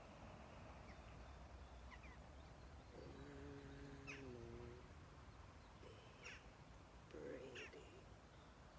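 Quiet open-air ambience with short, sharp bird calls every second or two. About three seconds in, a low, drawn-out tone lasts nearly two seconds and dips slightly near its end.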